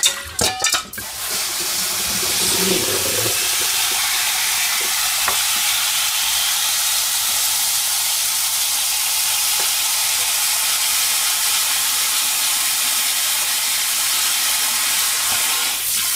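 Kitchen tap running steadily into a stainless-steel sink, a loud, even hiss of water. In the first second or so there are a few knocks of a metal bowl being handled in the sink.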